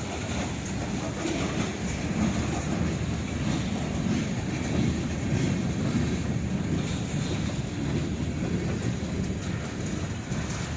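Long Norfolk Southern freight train rolling past, its wheels running steadily on the rails.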